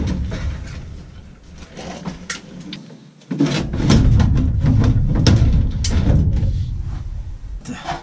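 Furnace blower assembly being worked loose and slid out of its sheet-metal compartment. There are clicks and knocks, then from about three seconds in a loud, heavy scraping and rubbing as it comes out.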